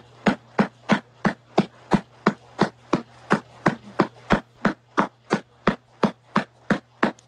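A hand patting a newborn baby's back in an even rhythm, about three pats a second, to burp the baby after a feed. A faint steady hum runs underneath.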